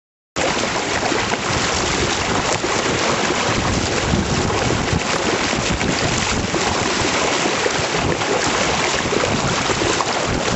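Water rushing and splashing along a moving canoe and off its pontoon stabilizer float, with heavy wind noise on the microphone. The steady rush starts abruptly just under half a second in.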